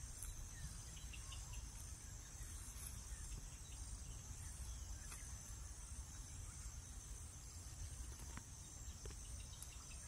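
Faint steady high-pitched drone of insects, crickets or similar, pulsing slightly, over a low rumble, with a few faint bird chirps now and then.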